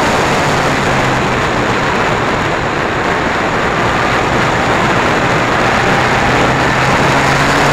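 Yamaha R1 motorcycle being ridden at a steady road speed, heard from a bike-mounted camera: a heavy rush of wind over the microphone with the inline-four engine's steady drone underneath.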